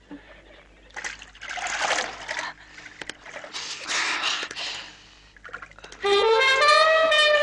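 Two swelling rushes of hissing noise, then a wind-instrument melody of held, gliding notes comes in loudly about six seconds in.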